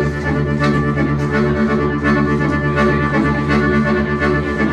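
Organetto, the Sardinian diatonic button accordion, playing a dance tune: a busy melody over steady held bass notes.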